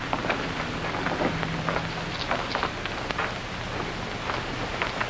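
Steady hiss with scattered crackles and clicks: the surface noise of a worn 1951 film soundtrack, with no speech.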